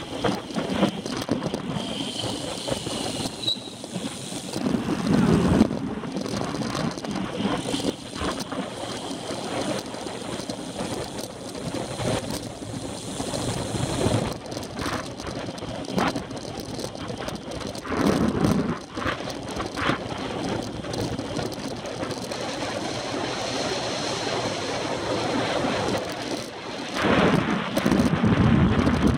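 Wind rushing over the microphone of a handlebar-mounted camera on a road bicycle at race speed, mixed with tyre and road noise. The wind swells a few times, about five seconds in, around eighteen seconds, and again near the end.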